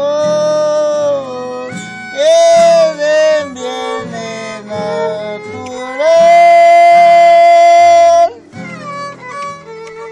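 Folk dance music of violin and strummed guitar: the violin plays a sliding melody over a steady guitar rhythm and holds one long, loud note about six seconds in.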